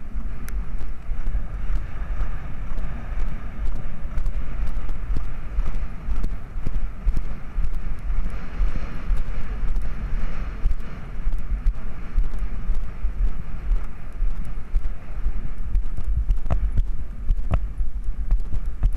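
Horse galloping on turf cross-country, its hoofbeats drumming steadily, heard from the rider's helmet camera with wind rumbling over the microphone.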